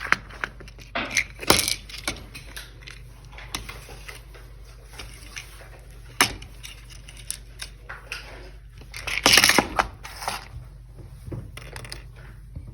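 Light clicks and metallic clinks of small faucet repair parts (seat, spring and Allen key) being handled, with a louder clatter about nine seconds in.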